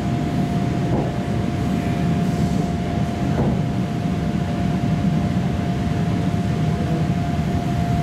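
EP2D electric train: a steady low rumble with one constant whine held at a single pitch, and a couple of faint brief rises.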